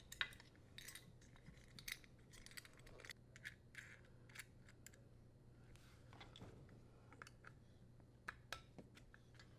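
Faint, scattered small clicks and light scrapes over quiet room tone: a strain relief nut being slid over the wires, then threaded and tightened onto a dishwasher's power-cord terminal box.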